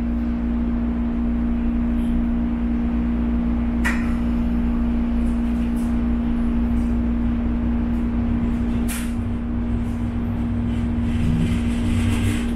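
Steady hum and hiss inside an East Rail Line train carriage: a constant droning tone over even noise. There is a sharp click about four seconds in and another about nine seconds in, and the rumble grows a little near the end.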